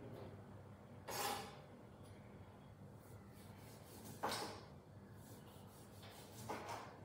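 Knife slicing through lime pieces on a cutting board: three short cuts, about a second in, just past four seconds and near the end.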